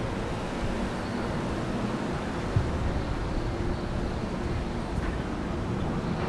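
Steady outdoor beach ambience: a low rumble of surf and wind on the microphone, with a single short thump about two and a half seconds in.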